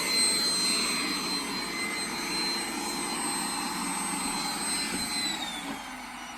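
Roomba robot vacuum running: a steady high motor whine over brush and suction noise. About five and a half seconds in, the whine falls in pitch and the sound drops as the motor winds down.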